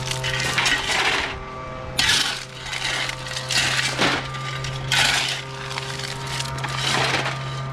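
Shovel scooping into a gravel pile again and again, the stones scraping and rattling with each scoop, about every second and a half. A steady low hum runs underneath.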